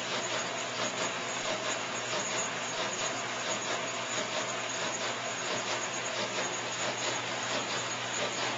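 Rollem 20-20 paper slitting, scoring and perforating machine running steadily, feeding printed sheets through its slitter heads onto the conveyor: a dense, even mechanical whir with a steady hum and fast, light ticking.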